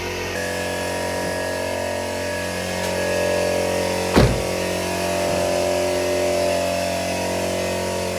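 A steady machine hum, with a single thump about four seconds in.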